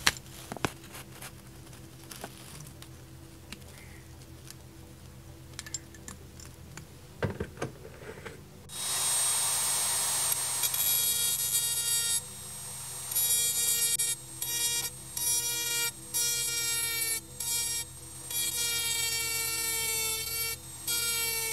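Light handling clicks of a small metal toy tractor. About nine seconds in, a handheld high-speed rotary tool with a cone sanding bit starts up with a steady high whine. The whine repeatedly drops away and comes back as the bit sands grime and paint off the tractor's metal chassis.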